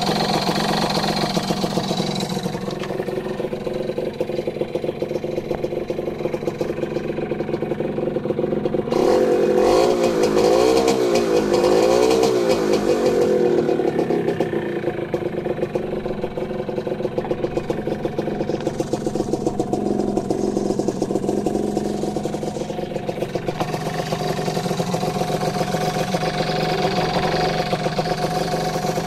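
Modenas Dinamik 120 two-stroke single-cylinder engine idling, revved up and down a few times about a third of the way through. Its exhaust note is weak and not solid, a sign of low compression from a leaking cylinder head gasket.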